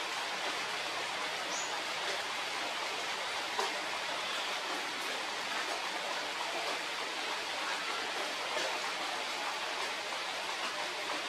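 Steady, even hiss of background noise, with one faint click about three and a half seconds in.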